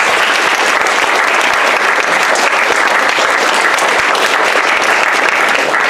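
Audience applauding at the end of a lecture: sustained clapping from many hands, which starts just before and fades out about a second after.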